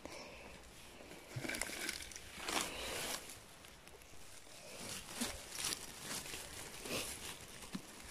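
Irregular rustling and crackling of grass, dry stems and forest-floor leaves as gloved hands push through the undergrowth around a clump of chanterelles, with a few sharp snaps of twigs.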